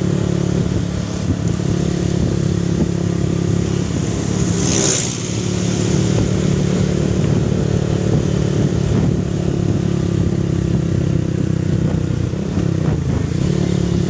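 Motorcycle engine running steadily while riding, heard from the rider's seat, with a low wind rumble on the microphone. A brief hiss comes about five seconds in.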